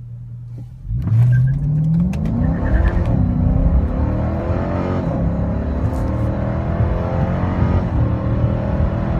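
A Dodge Charger R/T's 5.7 HEMI V8 idles, then accelerates hard about a second in. The engine pitch climbs, drops near three seconds as it shifts gear, and climbs again.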